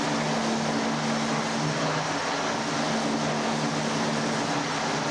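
The Scenic Railway roller coaster's drive machinery running steadily in its motor house: electric motors, drive belts and chains turning the lift cables, a constant low hum under a broad mechanical noise.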